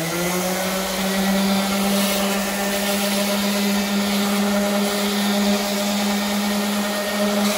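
Ryobi random orbit sander running at a steady speed with an even motor hum, its pad pressed down sanding the old wooden boards of a bench.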